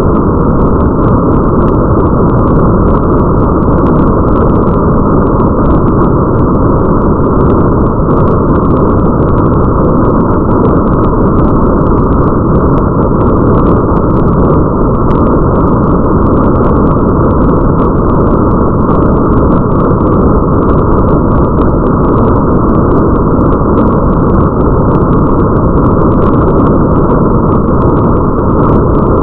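Steady, muffled rain ambience: a dense, low, unchanging rumble of rain with a faint patter of drops on top.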